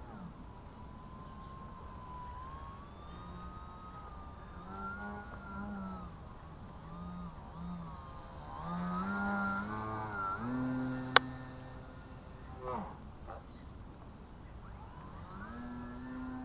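Electric brushless outrunner motor (Sunnysky 1800kv) spinning a GWS 8x4.3 slow-flyer propeller on a small RC aerobatic plane, whining up and down in pitch as the throttle changes during flight. It is loudest a little past the middle, and one sharp click comes about eleven seconds in.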